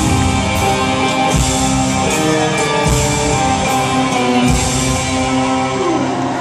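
A live band playing, with an electric guitar out front holding long notes.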